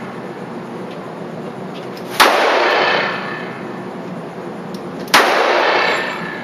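Two revolver shots about three seconds apart. Each sharp crack is followed by about a second of echo dying away in the enclosed indoor range.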